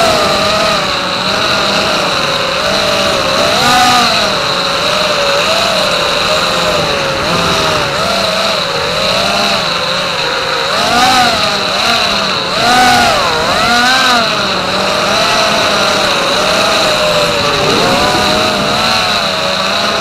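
Racing quadcopter's four Racerstar BR2307S 2500KV brushless motors spinning DalProp Cyclone T5045C props, a buzzing whine that rises and falls in pitch with each throttle punch and chop through the turns. A constant high-pitched tone runs beneath it.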